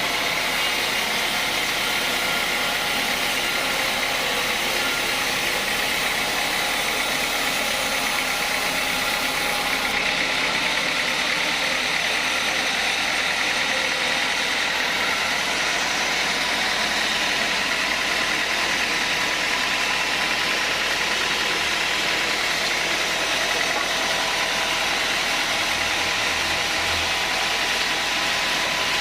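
Sawmill saw and its drive running steadily: a constant machine drone with a high whine.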